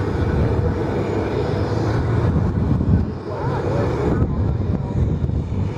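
Jet airliner engines running on an airport apron: a steady, low rumble, with wind buffeting the microphone.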